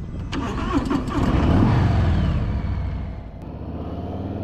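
2020 Harley-Davidson Street Bob's Milwaukee-Eight 107 V-twin through a Miller aftermarket exhaust, revving up as the bike moves off and accelerates. It is loudest about two seconds in, then eases to a steadier run.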